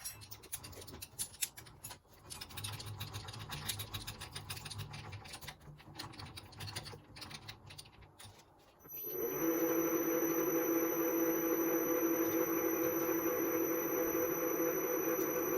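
Metal clicks and scraping as the cutter and workpiece are handled on a milling machine. About nine seconds in, the mill's spindle motor starts and runs steadily with a constant hum and a thin high whine.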